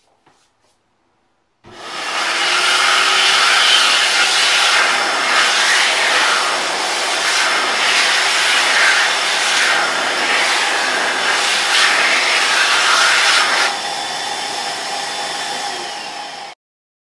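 American Dryer eXtreme Air high-speed automatic hand dryer blowing: it switches on abruptly about two seconds in and runs as a loud rush of air with a high whine, the sound shifting as hands move in the airstream. A few seconds before the end it steps down to a quieter blow once the hands leave the stream, then cuts off suddenly.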